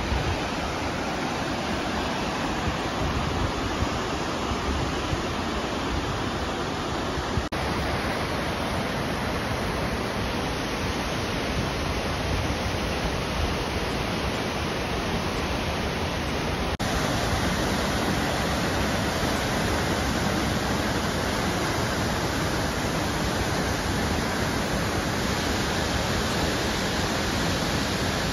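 Steady rushing of a waterfall, an even roar of falling water with no distinct tones, a little louder after about seventeen seconds.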